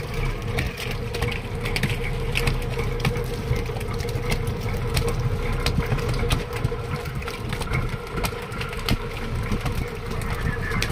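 Fishing boat's engine running steadily, with many quick irregular slaps and taps of freshly caught fish flapping on the deck.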